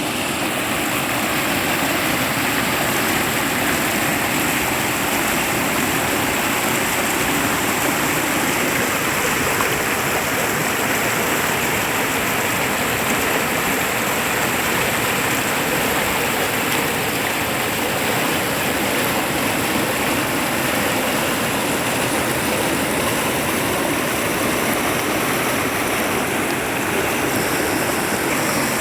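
Clear river water rushing steadily over rocks, an even, unbroken rush of flowing water.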